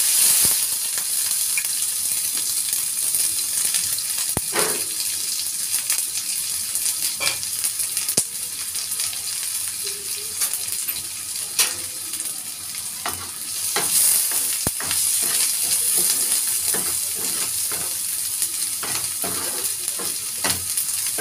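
Chopped onions and green chillies sizzling in hot oil with cumin seeds in a frying pan, the sizzle jumping up sharply as they go in. A steady hiss runs throughout, broken by occasional short clicks and scrapes of a spatula stirring them.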